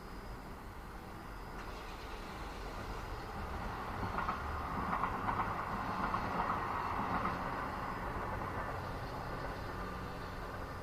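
A train passing: a rumbling, rattling rush that swells over a few seconds, holds, then fades away.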